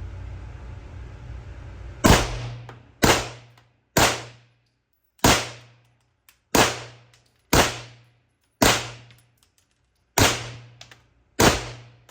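Suppressed Beretta M9 9 mm pistol firing nine shots at an uneven pace, roughly one a second, starting about two seconds in, each crack followed by a short ringing decay.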